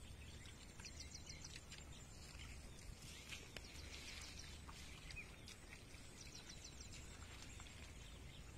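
Faint rural outdoor ambience: small birds chirping in quick runs of short high notes, about a second in and again past the middle, over a low steady rumble.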